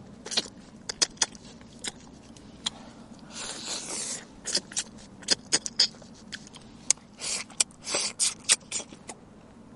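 Close-miked eating sounds of a person chewing steamed fish: irregular wet mouth clicks and smacks, with two short noisy stretches of sucking or rustling, about a third of the way in and again near the end.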